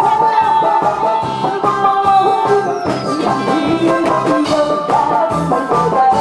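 A singer singing a song into a microphone over instrumental accompaniment with a steady beat.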